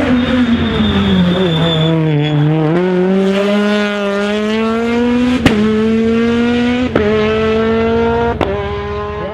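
Honda Civic Type R R3 rally car's four-cylinder engine slowing for a corner with a brief thin high squeal, then accelerating hard away, its pitch climbing steadily. It is broken by three sharp cracks at the upshifts, about a second and a half apart, and fades as the car pulls away.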